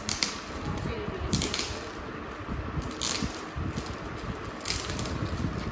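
Shiny metallic foil gift wrap crinkling and rustling as hands handle it and pull it open, in several short bursts.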